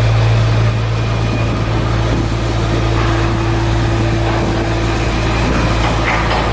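Steady, loud low hum of running machinery, with a thin higher tone joining about two seconds in.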